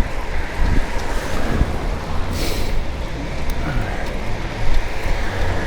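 Steady low rumble and road noise of a moving vehicle, with a short hiss about two and a half seconds in.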